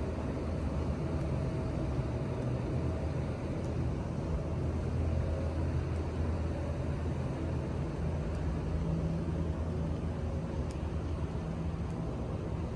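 Steady low mechanical rumble with a faint hum running through it, over outdoor city ambience.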